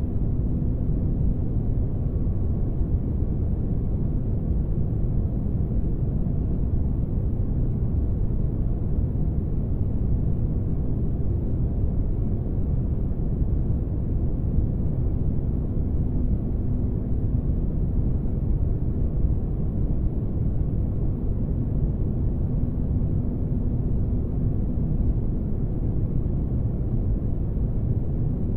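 Sci-fi spaceship interior ambience: a steady, unchanging low rumble of noise with a faint low hum running through it.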